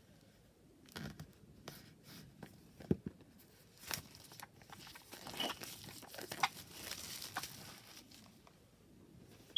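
Hands unwrapping packaging: crinkling and tearing of wrapping mixed with light taps and clicks, with a denser stretch of rustling in the second half.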